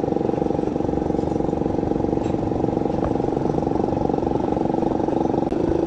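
A motor or engine running steadily with a rapid, even pulsing.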